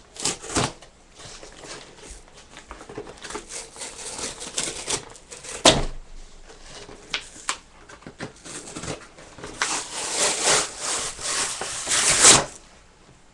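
Plastic goggle packaging being handled and worked open by hand, crinkling and crackling with scattered clicks. One sharp crackle comes about halfway through, and a dense run of crackling comes near the end.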